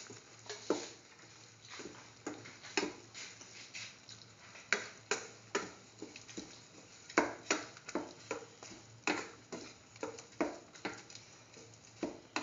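A spoon stirring a watery mung bean and soy chunk mixture in a metal pot, knocking and scraping against the pot in irregular short clicks, about one or two a second.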